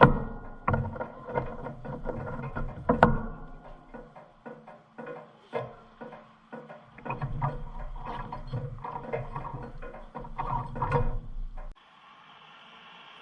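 Background music with plucked-string notes that cuts off abruptly near the end, leaving a faint steady hiss.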